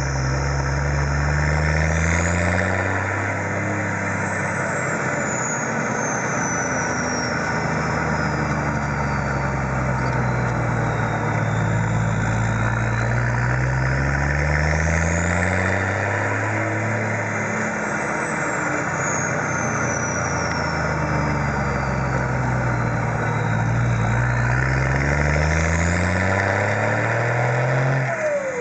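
Turbocharged Toyota 1HZ 4.2-litre six-cylinder diesel (Denco turbo kit) pulling through the gears. The turbo whistle climbs to a high pitch as it spools up and slides back down as it spools off, several times. Underneath, the engine note rises and drops back over steady road noise.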